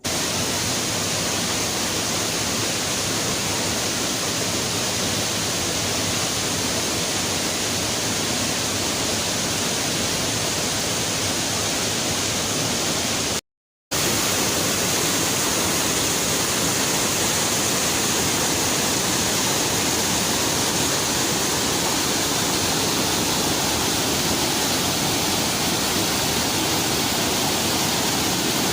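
Waterfall pouring into a deep pool, a steady rush of falling water, broken once by a half-second gap of silence about halfway through.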